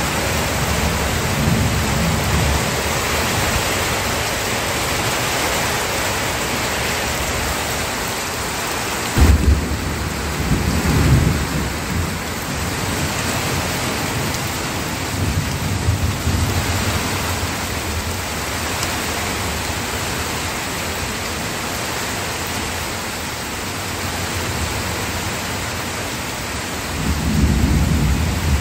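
Steady rain with low thunder rumbling several times. The thunder is loudest about a third of the way in and again near the end.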